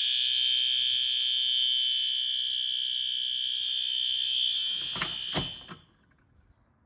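System Sensor P2RL fire alarm horn sounding a steady continuous tone during a system test. Two sharp clicks come about five seconds in, and the horn cuts off just after them.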